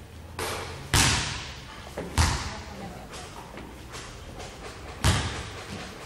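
A basketball thudding on a wooden gym floor: three loud bounces, about a second, two seconds and five seconds in, with lighter knocks between. Each one rings on in the echo of the large hall.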